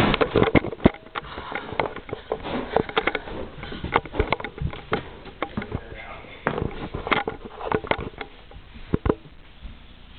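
An irregular run of short clicks and sniff-like breathy bursts, fading somewhat toward the end.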